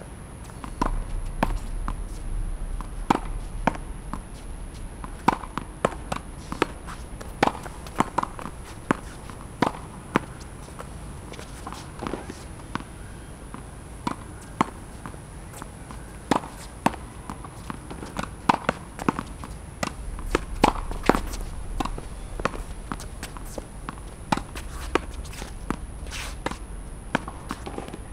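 Tennis ball being hit against a practice wall: short, sharp knocks of racket strikes, rebounds off the wall and bounces on the court, coming irregularly about one to two a second.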